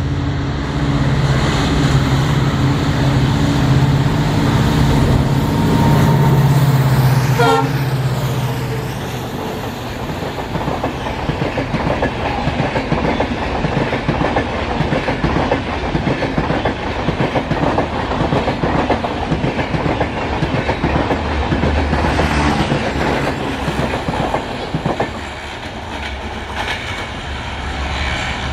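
A WDP4-class diesel locomotive passes with its engine running. It is followed by a long rake of passenger coaches clattering over the rail joints as the train goes by.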